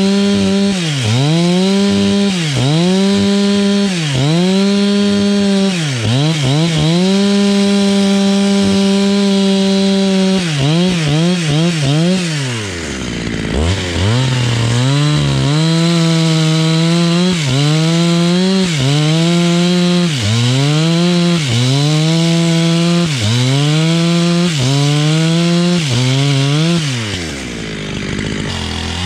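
Two-stroke chainsaw cutting wood under load, its engine pitch dipping and recovering about once a second as the chain bites. About halfway through the engine drops almost to idle and then revs back up into the cut, sagging again near the end.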